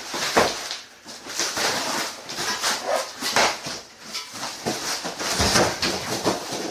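The compressor's packing being pulled apart and handled: irregular scraping and rustling with several short knocks.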